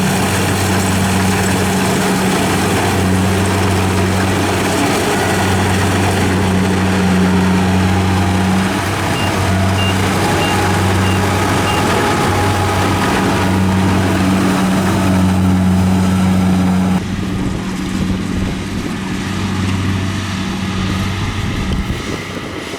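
Rice harvesting machine's engine running with a steady low drone and mechanical clatter; about 17 seconds in, the higher noise drops away and it gets quieter.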